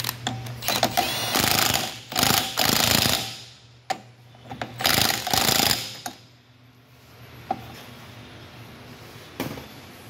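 Impact wrench hammering on the lug nuts of a wheel hub: a few short blips, then two runs of about two seconds and a second and a half.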